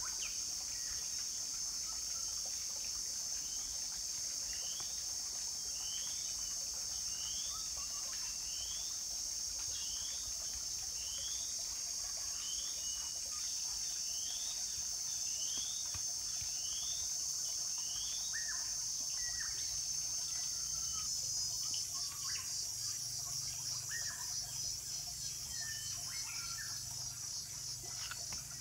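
A steady high-pitched insect drone, typical of cicadas or crickets, turns into a fast pulsing about two-thirds of the way in. Over it a bird repeats a short rising call about a dozen times in the first half, and a few faint knocks come later.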